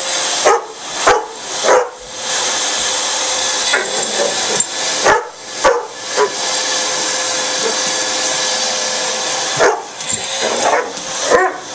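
Chocolate Labrador barking in short bursts, in three clusters, at a running upright vacuum cleaner. The vacuum's motor keeps up a steady rushing hum underneath.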